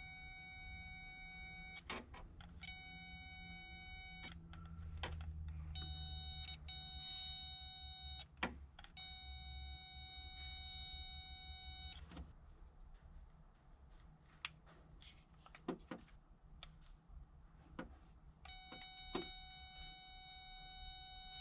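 A steady, high electronic beep that sounds for one to three seconds at a time, switching on and off about five times, with sharp clicks in the gaps and a low hum underneath.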